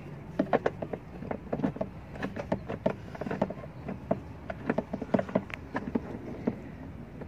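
Many irregular light clicks and knocks of hands handling the plastic coolant expansion tank and nearby parts in a car's engine bay.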